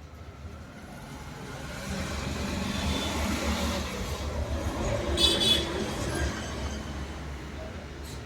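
A passing motor vehicle, its low rumble swelling and then fading away, with a short high horn-like tone about five seconds in.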